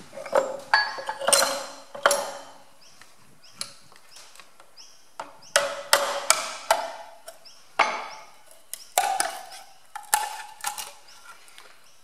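Irregular sharp metal knocks and clinks, each with a short ring, as a screwdriver is tapped and levered against a tractor water pump and its stainless steel backing plate to break the plate free of its silicone. There are about a dozen strikes, in bunches near the start and through the middle.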